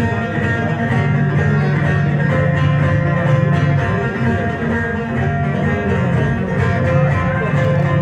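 Bağlama (long-necked Turkish saz) playing the instrumental passage of a semah tune, a steady run of plucked notes without singing.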